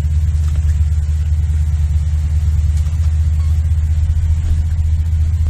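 Big rescue truck's engine running steadily, a loud low drone heard from inside the cab while driving.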